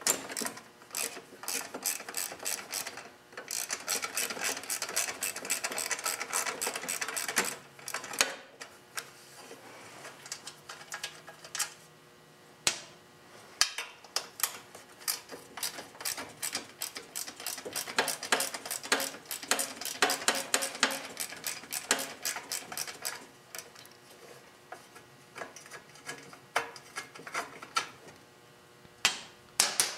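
Ratchet wrench clicking in quick runs as the bolts holding the engine shroud are backed out, with quieter stretches and a few single knocks between runs.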